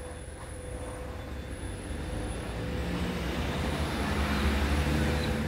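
Engine rumble of a passing motor vehicle, growing steadily louder and loudest near the end.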